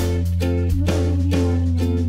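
Background music with a plucked string instrument repeating short note patterns about twice a second over a steady bass note.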